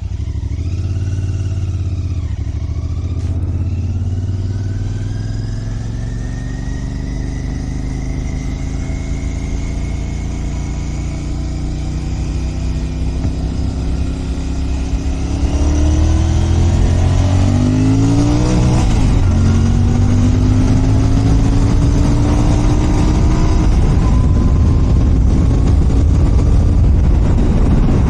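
Royal Enfield Continental GT 650's 648 cc parallel-twin engine on its stock exhaust, pulling under way: the engine note climbs slowly for the first half, then rises quickly through a few short sweeps about halfway through and settles into a louder, steady cruise.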